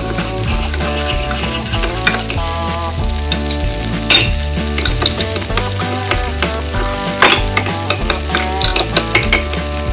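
Steady frying sizzle accompanying stirring in a toy frying pan, over light background music. There are small clicks of a plastic spatula, with a louder knock about four seconds in and another near seven seconds.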